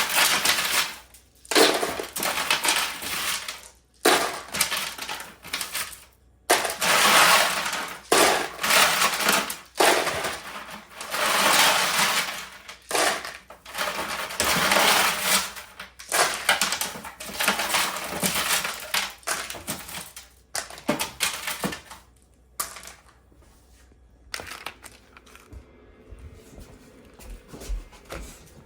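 A series of loud rustling strokes, each a second or two long, with short gaps between them; they stop about 22 seconds in, leaving a few faint clicks.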